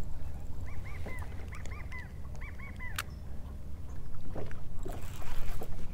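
An animal calling, most like a bird: a quick series of short arched notes in twos and threes, over a steady low rumble of wind and water. A single sharp click about three seconds in.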